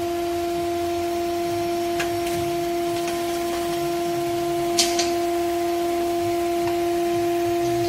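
A 30-ton CNC copper busbar machine running with a steady, even tone. A brief hiss comes about five seconds in.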